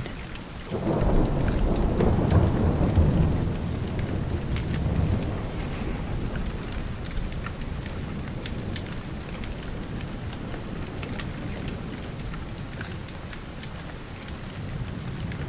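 Steady rain falling, with a long roll of thunder that swells about a second in and slowly fades over the next several seconds.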